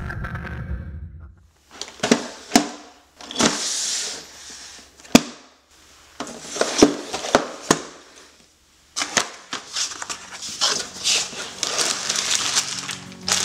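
A cardboard LEGO set box handled on a table: sharp taps and knocks with short scraping slides, then from about two-thirds of the way through a dense crinkling rustle as plastic bags of pieces slide out of the opened box.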